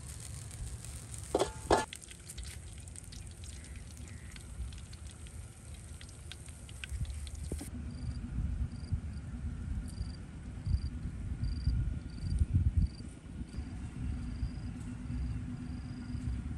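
A couple of sharp clinks of a serving spoon against the metal tray, with faint scraping. After a cut, an insect chirps in short high notes about twice a second, over wind rumbling on the microphone.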